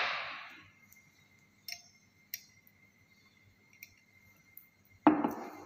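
Lab glassware clinking: the ring of a glass knock dies away at the start, a few faint ticks follow, and a sharp glass clink comes about five seconds in with a smaller one after it, as a glass reagent bottle and test tube are handled on the bench.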